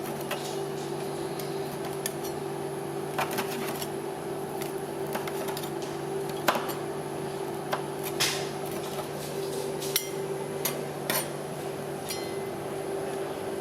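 Metal spatulas scraping and tapping on a rolled-ice-cream cold plate, irregular clicks and scrapes over a steady hum.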